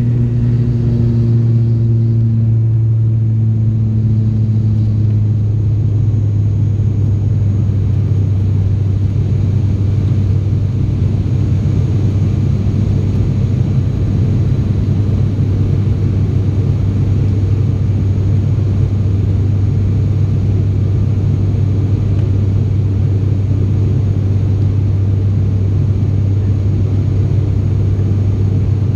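Steady low drone of an ATR 72-600's Pratt & Whitney PW127 turboprops and propellers, heard inside the cabin from a window seat beside the left propeller during the climb after takeoff. In the first few seconds the drone dips slightly in pitch and its higher tones fade, then it holds even.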